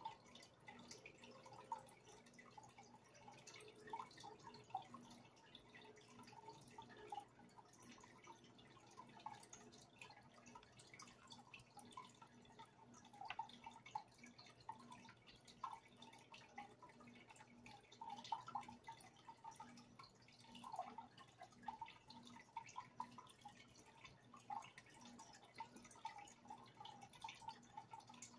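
Faint aquarium water dripping, with many small irregular pops over a low steady hum.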